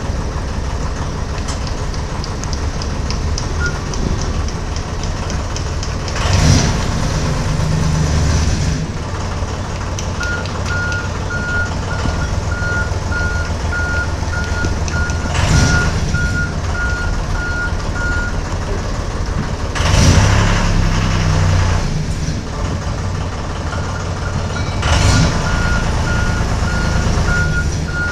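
Valley Beaver tow tractor's engine running as it drives back and forth, with a reversing alarm beeping about twice a second for several seconds from about ten seconds in and again near the end. Four brief louder bursts stand out along the way.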